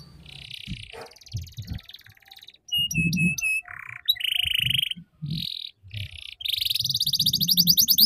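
Domestic canary singing a varied chattering 'ngeriwik' song: buzzy trills, a few short repeated notes, a lower buzzy note, then a fast trill of rising notes that grows louder near the end.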